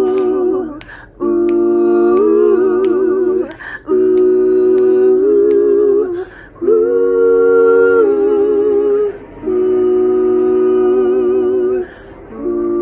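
Women's voices humming wordless sustained chords in harmony, in about five held phrases of two to three seconds each, with short breaths between them and light vibrato.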